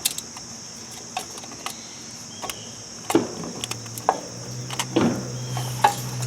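Light clicks and taps of small metal parts being handled inside a fan motor housing. A little past halfway, a steady low electrical hum starts and keeps going.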